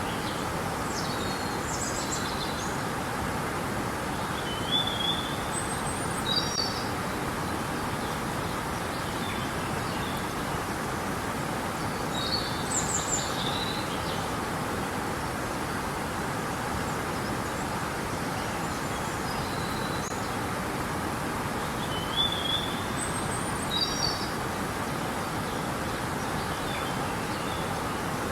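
River water flowing in a steady rush, with small songbirds giving short high chirps and trills every few seconds.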